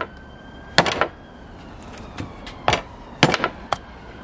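Hatchet chopping lamb into pieces: sharp chops at uneven intervals, some in quick pairs.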